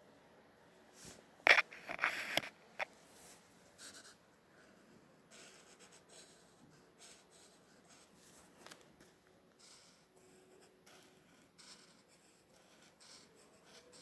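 A few sharp clicks and knocks from handling a brush-tip marker, between about one and a half and three seconds in. After them come quiet scratches and strokes of the marker tip on paper.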